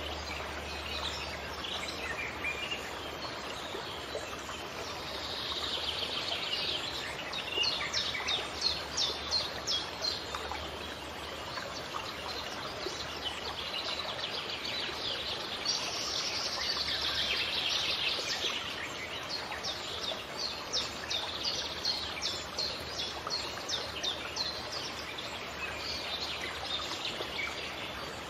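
Small birds chirping in runs of quick repeated notes over the steady rush of a running stream.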